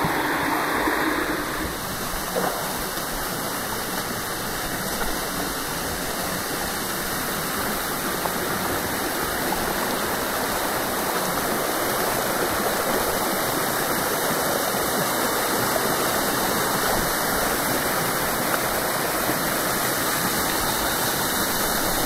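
Steady rushing of cascading water in a rocky stream, an even, unbroken roar.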